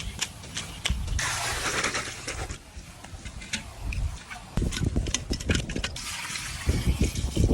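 Water splashing and rushing, followed by a run of sharp clicks and low knocks from handling.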